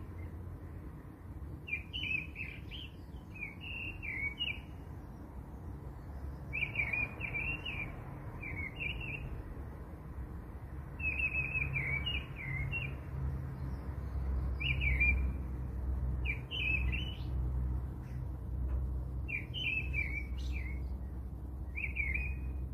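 A small bird chirping in short, quick phrases repeated every second or two, over a low steady rumble.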